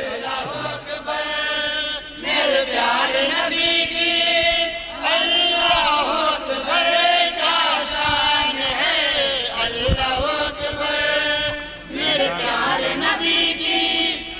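Men's voices chanting a melodic devotional refrain through a microphone and loudspeakers, in long phrases that bend up and down in pitch.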